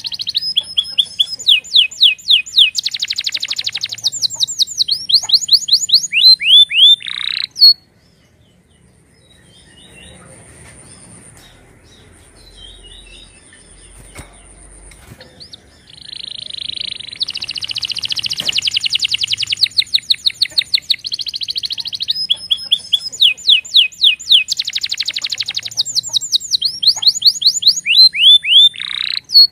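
Domestic canary singing: loud, rapid trills and runs of quick downward-sweeping notes in two long phrases, with a quieter pause of about eight seconds between them.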